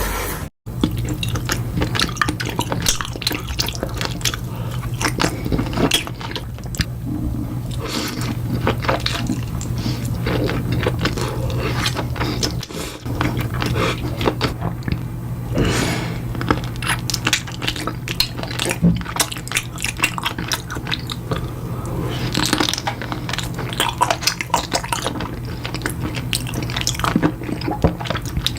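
Close-miked mukbang eating sounds: wet chewing and smacking, made of many small sharp clicks, over a steady low hum.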